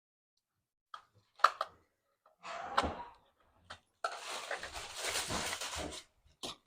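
Clicks, taps and rustling handling noise as batteries are fitted into the plastic battery compartment of a toy chainsaw: a few sharp clicks, then about two seconds of rustling.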